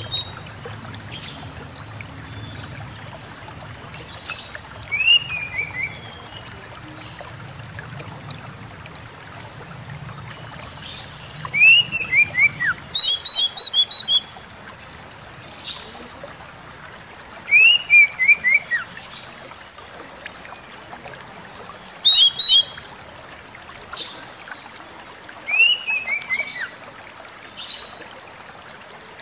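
Oriental magpie-robin (kacer) singing: short phrases of a few quick falling whistled notes, repeated every few seconds, with sharp high calls in between, over a steady background hiss.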